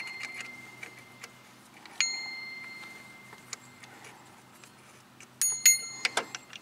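Bright metallic dings that ring out like a small bell. There is one about two seconds in and a quick run of several near the end, with faint light ticks between them.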